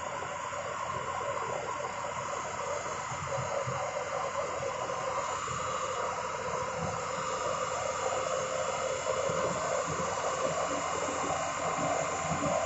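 An excavator's diesel engine running steadily, with a constant whine over the rumble; it gets slightly louder toward the end.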